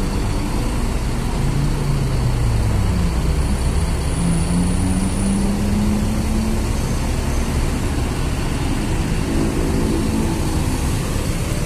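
Mercedes-Benz OH-1626 coach's rear-mounted diesel engine running in a fuel-station queue, a steady low rumble. Engine notes slide down in pitch about two seconds in, rise again around five seconds, and swell once more near ten seconds.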